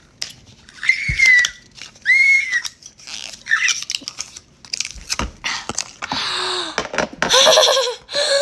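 A girl's two short, high-pitched excited squeals about a second and two seconds in, then the crackle and rustle of a cardboard box being opened by hand, ending with a loud excited exclamation.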